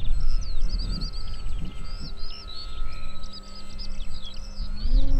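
Birds chirping and trilling over a low wind rumble on the microphone, with the steady hum of an electric RC model plane's motor and propeller that comes in about two seconds in and rises a step in pitch near the end.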